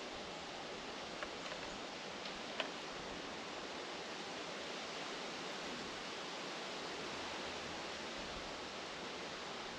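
Steady, even hiss of forest ambience, with a few faint clicks between about one and three seconds in, the sharpest near the three-second mark.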